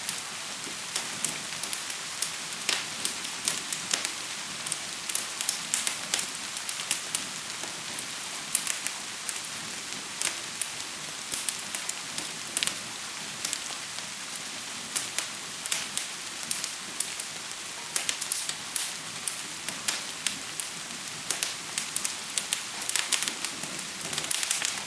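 Crackling fire and gentle rain: a steady, even hiss of rain with frequent, irregular sharp pops and crackles over it.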